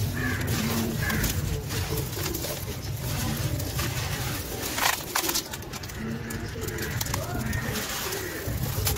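Wet sand-cement chunks crushed and crumbled by hand in a tub of water, gritty crumbs crunching and dropping into the water. A bird calls in the background.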